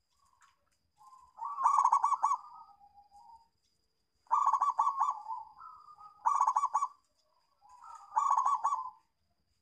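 Zebra dove (perkutut) singing: four phrases of rapid, pulsing coos, each a quick run of staccato notes trailing off into a softer coo.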